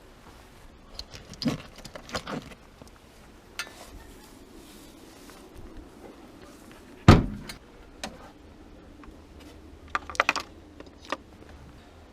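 Hand tools clinking and knocking against metal: scattered sharp clinks, one loud knock about seven seconds in, and a quick run of clinks near the end.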